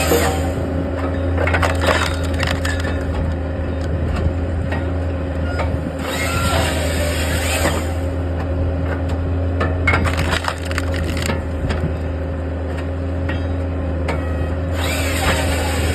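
Hahn HFP 160 skid-steer firewood processor at work: a steady drone from the skid steer and its hydraulics, with wood cracking and splintering as logs are split on the 6-way wedge. A high hissing burst about two seconds long comes back roughly every eight seconds as the processor's saw cuts through the log.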